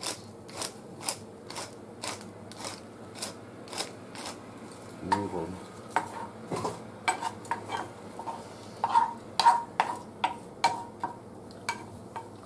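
Wooden spatula stirring sauce in a stone-coated frying pan, knocking and scraping against the pan about twice a second.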